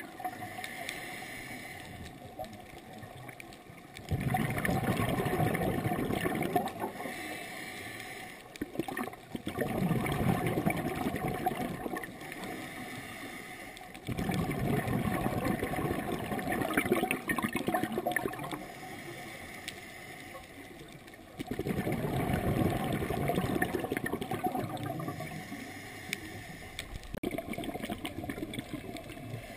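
Scuba diver breathing through a regulator underwater. There are about four long bursts of exhaled bubbles, each gurgling loudly and then trailing off, with a softer inhalation hiss between them.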